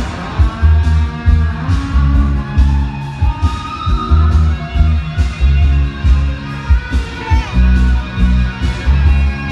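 Women's floor-exercise music with a heavy, steady bass beat and guitar, played loud.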